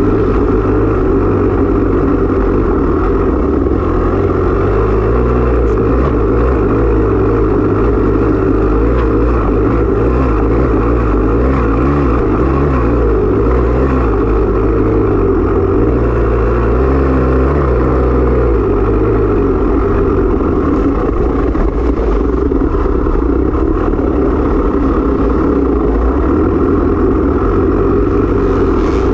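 Off-road racing dirt bike engine running loud and without a break, its pitch rising and falling as the throttle is worked over rough cross-country terrain.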